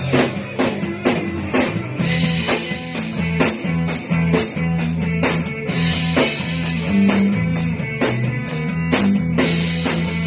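Rock jam on drum kit and guitar: the drums keep a steady beat of about two hits a second over held low notes.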